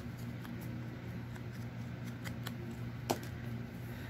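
Light, scattered taps and scuffs of hand paper-craft work on a desk, with one sharper click about three seconds in, over a steady low hum.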